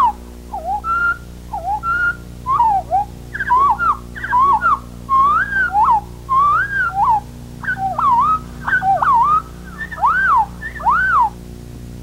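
Indigo bunting song played back from tape at quarter speed, which puts it two octaves lower: a slow series of whistle-like notes sliding up and down, most notes given twice in a row as near-identical pairs. The song stops near the end, over a steady low hum from the playback.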